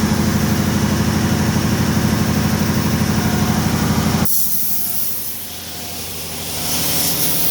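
Laguna 37-inch wide belt sander running with a 16-gauge steel sheet feeding under its 80-grit belt: a loud, steady machine noise with a rapid low pulsing. About four seconds in the low sanding noise drops off abruptly and a loud compressed-air hiss takes over, in two spells.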